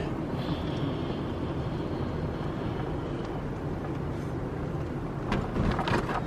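Steady low rumble of a car on the move, with a few short clicks and knocks near the end.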